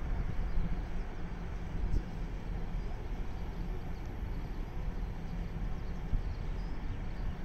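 Wind buffeting the microphone: an uneven low rumble with no distinct events.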